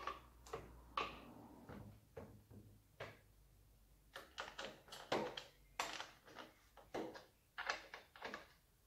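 Husqvarna T540i XP cordless chainsaw being handled on a wooden workbench, its plastic housing giving faint irregular clicks and knocks, thickest from about four seconds in. The saw's motor is not running.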